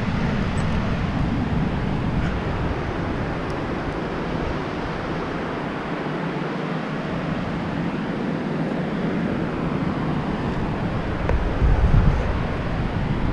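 Wind buffeting an action camera's microphone as a steady rumbling hiss, easing off in the middle and gusting louder near the end.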